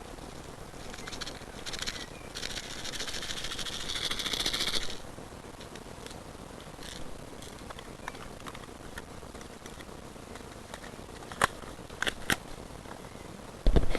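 Airsoft electric gun firing on full auto: a rapid buzzing rattle in a short burst and then a longer one of about two and a half seconds. Three sharp clicks follow near the end.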